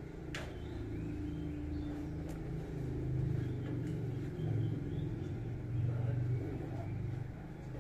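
A low, engine-like rumble with a faint steady hum over it, swelling in the middle and easing off near the end; a single sharp click sounds about half a second in.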